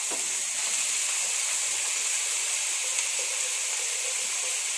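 Steady sizzling of ghee in a pot, frying onions and washed rice, with a faint click at the start and another about three seconds in.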